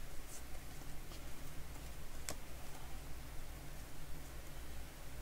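Football trading cards being flipped through by hand: soft sliding and rustling of card stock, with a sharper click as a card snaps a little over two seconds in.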